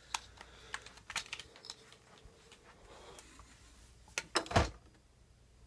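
Handling noise: scattered light clicks and taps of plastic objects being moved, with a louder knock about four and a half seconds in.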